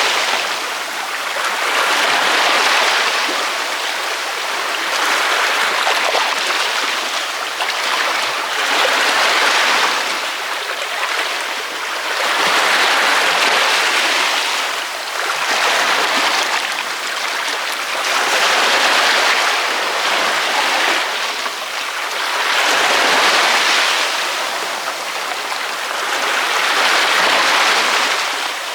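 Ocean waves breaking on a beach: a steady hissing wash of surf that swells and eases every three to four seconds.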